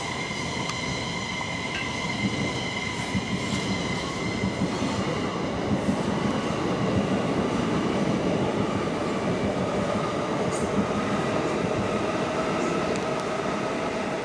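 Electric trains passing on the main line: an Elizabeth line Class 345 at first, then a Heathrow Express Class 387 unit running by close. The wheel-on-rail rumble swells to its loudest about halfway through, with steady high tones over it.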